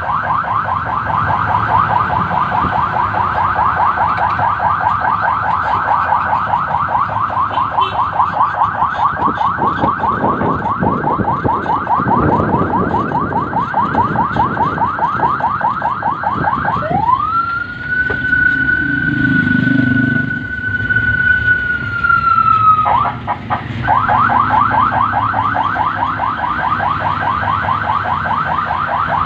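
Electronic siren on a patrol vehicle sounding a fast-pulsing yelp. A little past halfway it switches to a tone that rises, holds steady for about six seconds and falls away, then the fast pulsing returns.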